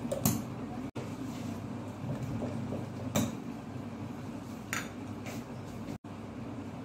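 Plastic vacuum cupping set with its hand pump gun: a few sharp plastic clicks and clacks as cups are pumped onto the skin and handled, over a steady low hum.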